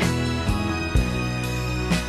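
Instrumental background music: sustained chords with a few drum hits.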